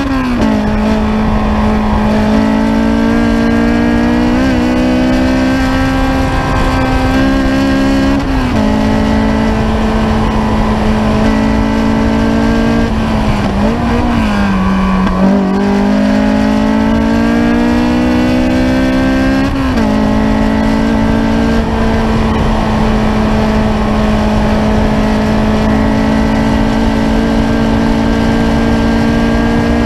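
Ariel Atom's engine heard from the open cockpit on track, pulling hard with its pitch climbing and dropping sharply at each upshift. About halfway through the note sags and recovers as the car slows for a corner and accelerates out, then rises slowly through a long pull, over a steady rush of wind.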